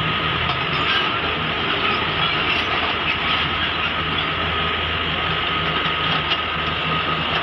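Mini excavator's diesel engine running steadily under working load, with a steady high-pitched whine over it.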